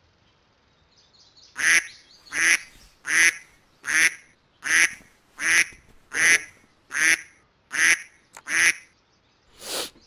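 Smartphone alarm going off: a short call-like tone repeated ten times, about one every three-quarters of a second, then stopping as the alarm is dismissed. A brief noisy burst follows near the end.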